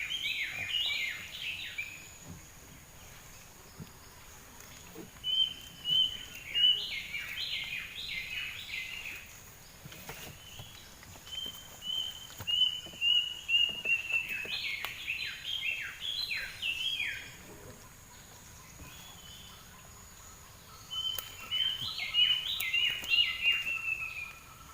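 A songbird singing four loud phrases a few seconds apart, each a few steady high whistles followed by a quick cascade of falling notes, over a faint steady high-pitched insect-like tone.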